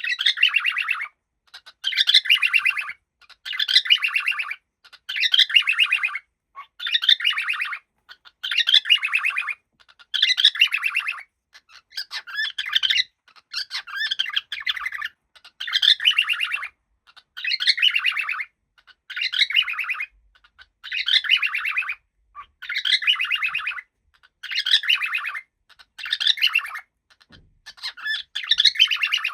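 Cockatiel chirping in a steady run of short bouts of rapid chatter, about one bout a second with brief pauses between them.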